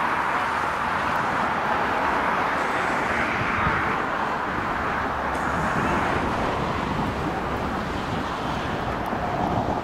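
Steady outdoor background noise: an even hiss with no distinct events standing out.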